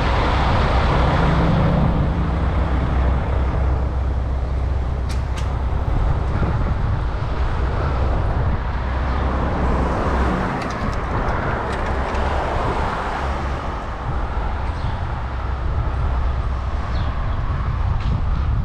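Steady wind rumble on the microphone of a moving bicycle, mixed with road traffic noise, with a few faint clicks.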